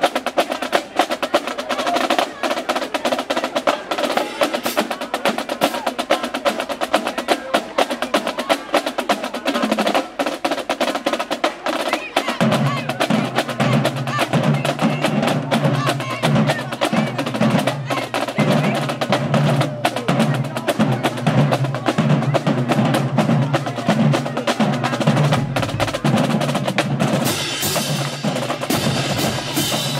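Marching band drumline playing a fast cadence on snare and tenor drums, with dense, rapid strokes throughout. About halfway through, a low, pulsing bass line joins in under the drums.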